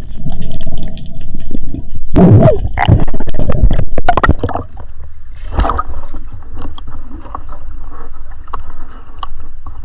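Water gurgling and sloshing, with scattered clicks and knocks. It is loud for the first four and a half seconds, then quieter.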